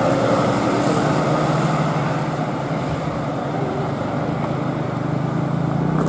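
Engine of a high-deck tour bus pulling away with a steady low hum, mixed with a passing motorcycle's engine.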